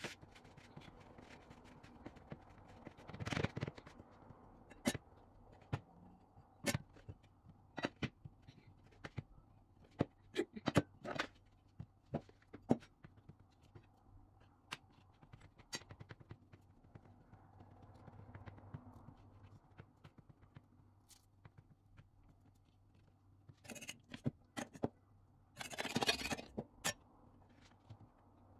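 Hands working pastry dough on a plastic cutting board: scattered light taps, clicks and scrapes, bunched closely for a few seconds in the middle. There are two short louder rustles, one about three seconds in and one near the end.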